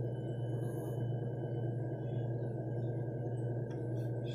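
Steady low hum with a faint, thin high tone above it: room tone.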